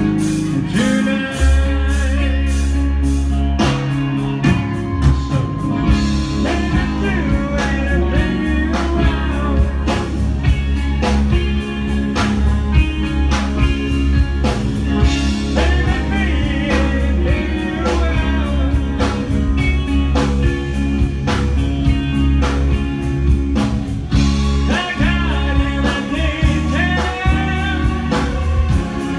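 Live hard rock band playing: distorted electric guitar, bass and drums with a steady beat under a male lead vocal.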